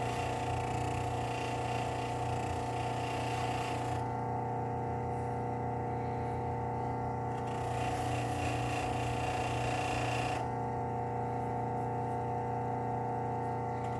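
Electric buffer motor running with a steady hum while rust is buffed off a steel chisel, a high hiss of the metal against the wheel coming and going as the chisel is pressed on and lifted.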